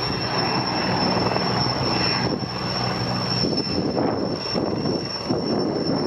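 Sikorsky S-64E Air-Crane heavy-lift helicopter flying overhead: a steady, loud rotor beat with a high, steady turbine whine over it.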